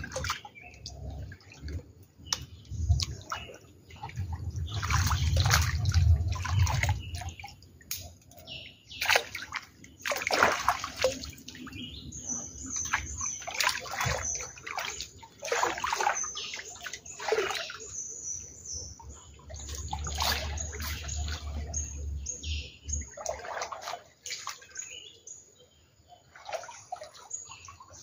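Water sloshing and splashing in irregular bursts as a person wades waist-deep through floodwater and pulls a fishing net through it.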